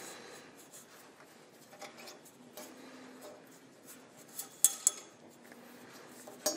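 Small metal clicks and light rubbing as a turnbuckle on a steel wing-bracing cable is turned with a thin metal pin to tension it. Two sharp clicks come close together a little past halfway, and another near the end.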